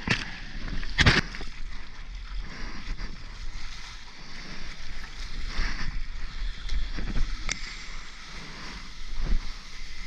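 Seawater splashing and washing over a soft-top surfboard as it is paddled through whitewater, with a loud splash about a second in and a few smaller splashes later over a steady wash.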